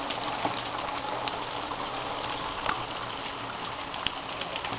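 Artificial rain from a demonstration rig falling on a working model and running off through its gutters and pipes: a steady rush of water with a few sharp drips.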